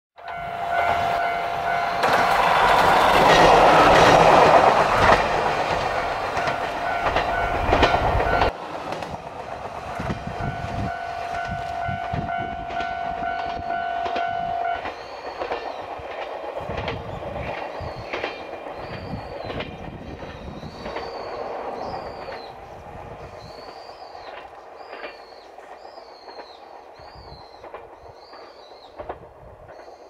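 Moka Railway diesel railcar running over a level crossing, loud for the first eight seconds and then fading as it moves off. The crossing's warning bell rings steadily with a pulsing tone and stops about halfway through. In the second half there are repeated short, high bird chirps.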